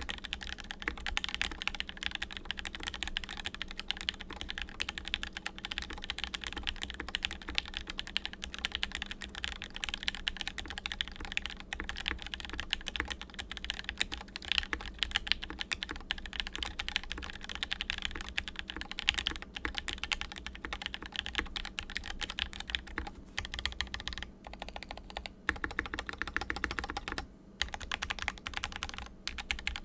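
Fast typing on a UTD 360 custom mechanical keyboard with Gateron Yellow linear switches, lubed and fitted with a heavy case. It is a dense, continuous stream of keystrokes with a few short breaks in the last several seconds.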